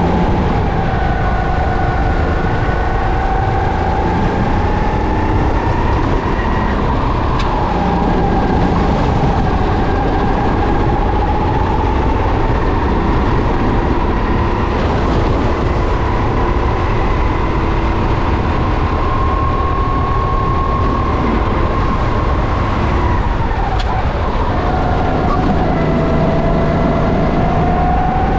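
Racing kart engine running hard on track, its whine climbing and falling with engine speed as the kart accelerates and slows, with a brief sharp drop about 24 seconds in before it climbs again. A heavy rumble of wind and vibration lies underneath.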